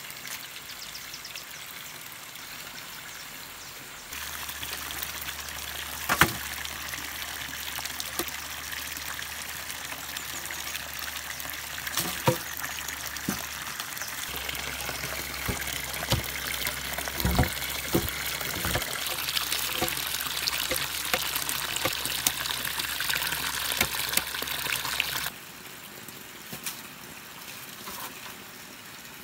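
Water pouring and trickling steadily, starting and stopping abruptly, with a few sharp knocks in between.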